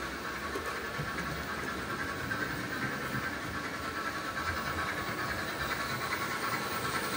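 Double-headed OO gauge model steam train, a Hornby Black 5 leading, running steadily along the track: an even rumble of small wheels on the rails with the whir of the locomotive motors.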